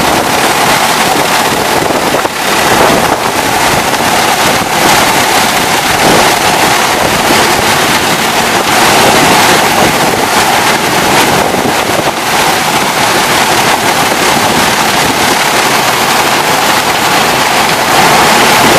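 Sugar mill cane-preparation machinery running: the first cane cutter and carrier moving knifed, shredded cane. The noise is loud and steady, with a constant tone running through it.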